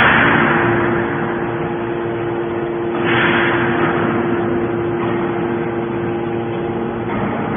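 Hydraulic can baler running, its pump motor giving a steady hum. A rush of hissing noise fades away in the first second, and another starts suddenly about three seconds in and fades the same way.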